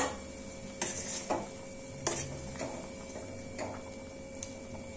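A metal spatula knocking and scraping lightly against a steel kadai, about half a dozen separate clicks, as pieces of pointed gourd are stirred into a curry gravy, over a faint steady hum.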